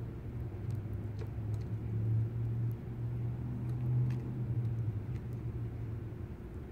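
Low, steady engine rumble of a motor vehicle, swelling in the middle and easing off again.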